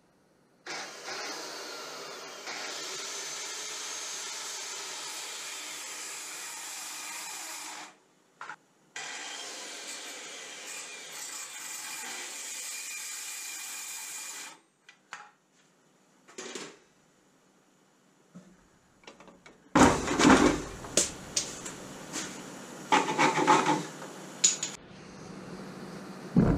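Corded handheld circular saw running and cutting through a wooden board in two long passes, about seven and five seconds, broken by a short stop. After a quiet spell, a few seconds of loud wooden knocks and clatter follow.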